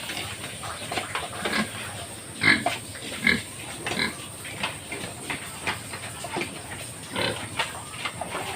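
Several farm pigs making many short grunts and calls in quick, irregular succession, the loudest two about two and a half and three seconds in.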